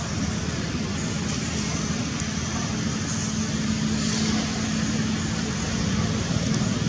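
Steady outdoor background noise: a low rumble under an even hiss, with a low steady hum that comes in about a second and a half in and fades out about five seconds in.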